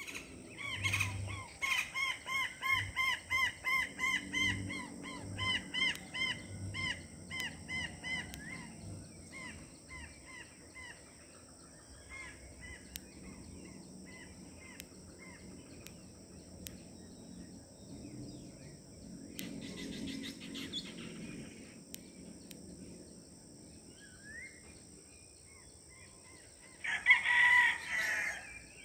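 Birds calling at dawn: one bird repeats a short call about three times a second for the first several seconds, fading away, then scattered fainter calls, and a loud, brief call near the end. A steady high insect drone sounds underneath.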